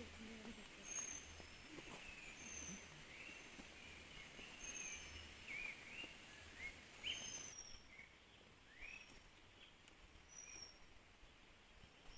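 Faint birdsong: short, thin, high notes repeat about once a second, with a run of quick chirps and rising calls in the middle, over a faint low background rumble.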